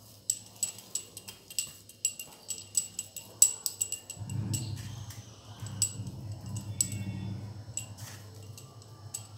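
Bangles clinking again and again in sharp, ringing clicks as hands press and shape a moist lentil-and-cabbage mixture into patties. From about four seconds in, a low steady hum runs underneath.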